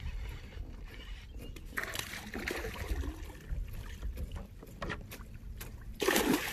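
A hooked largemouth bass thrashing at the surface beside the kayak: one short, loud splash near the end, over a low steady rumble.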